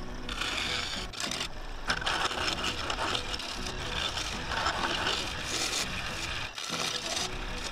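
A tool working the outside of a spinning claret ash bowl blank on a wood lathe: a scraping, rasping hiss in passes that breaks off briefly a few times, over the lathe's steady hum.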